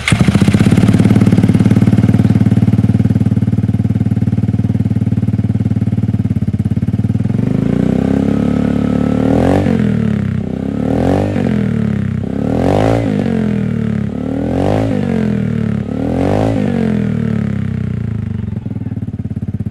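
Vespa Sprint 3V scooter's single-cylinder four-stroke engine idling through a Best3 header and DBS aftermarket silencer, then revved up in five quick blips, each rising and dropping back in pitch, before it settles to idle again near the end.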